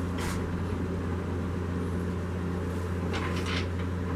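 Steady low machine hum in a woodworking shop, with a short knock just after the start and a cluster of knocks and rattles about three seconds in as the wooden tankard blank is fitted into a jam chuck on the lathe.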